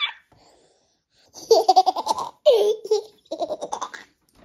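A person in a fit of laughter: after a short silence, three runs of rapid, high-pitched laughing.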